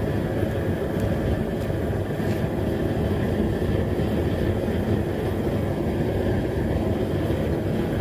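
Homemade propane foundry's gas burner roaring steadily as it fires into the lidded furnace, heating the crucible of aluminium.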